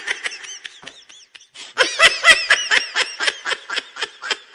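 A person laughing in rapid 'ha-ha' pulses: a short burst at the start, a quieter stretch, then a longer run of quick laughs from about a third of the way in to near the end. It is a meme laugh sound effect.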